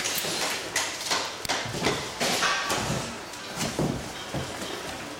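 Irregular knocks, clicks and short scrapes of an office-chair seat's plastic mechanism and backrest bracket being handled and shifted on a workbench.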